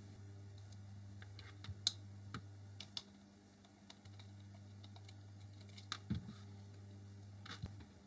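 A handful of faint, irregular clicks and light taps of small hand tools, an Allen key and a socket driver, against the plastic and metal of a cordless oscillating multi-tool while a small bolt is undone, over a low steady hum.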